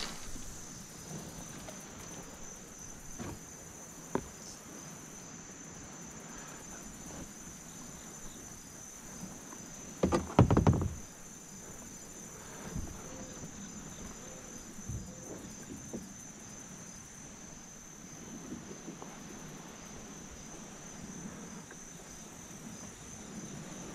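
Steady high-pitched chorus of insects droning without a break. About ten seconds in, a short cluster of loud thumps stands out above it.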